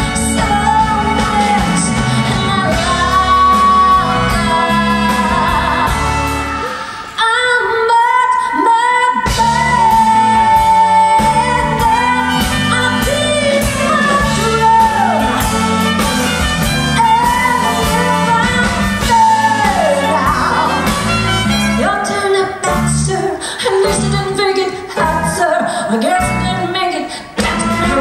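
A woman singing a song live into a microphone, backed by a band of drums, bass, electric guitar, keyboard and horns. About seven seconds in the bass and drums drop out for a couple of seconds under her voice, then the full band comes back in.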